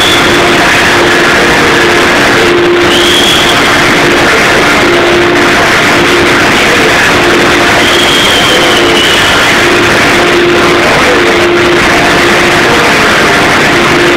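Loud, steady machine noise of a weaving shed: many looms running together, with a faint low tone that comes and goes.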